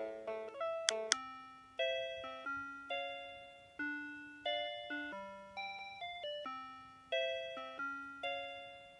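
Cordless phone handset's built-in ringtone melodies: a quick run of chiming notes with chords stops about a second in, around two sharp clicks, and a slower tune of single chime-like notes, each fading away, starts up.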